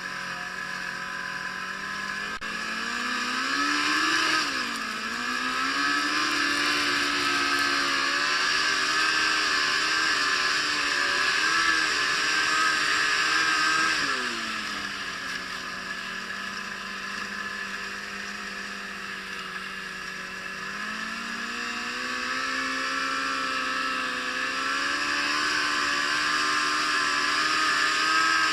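Yamaha Apex RTX snowmobile's four-cylinder four-stroke engine running under throttle, its pitch climbing about four seconds in and holding high, dropping back to a lower steady pitch around halfway, then rising again in the last third.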